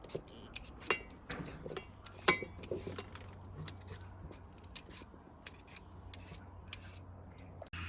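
An irregular run of small, sharp clicks and light rubbing of small hard objects being handled, the sharpest click about two seconds in.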